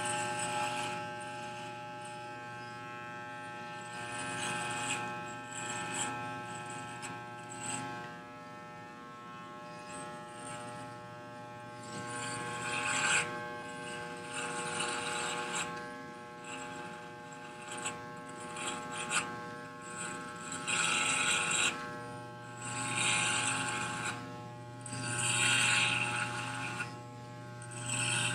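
Electric hair clippers buzzing steadily. Each time the blades run through the hair a louder rasping hiss rises over the hum, and these strokes come every few seconds in the second half.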